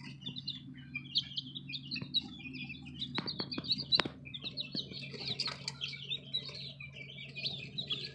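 A brood of young chicks peeping non-stop, many short high cheeps overlapping one another. A few sharp clicks come about three to four seconds in, over a low steady hum.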